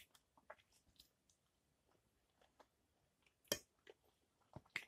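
Quiet eating sounds of someone eating fried potatoes and ham with a fork: a few soft chewing and mouth clicks. Two sharper clicks stand out, about three and a half seconds in and again near the end.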